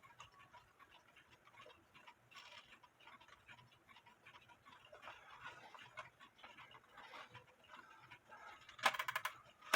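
Late-1800s German wall clock's wooden plate movement ticking faintly, with a brief louder clatter about nine seconds in.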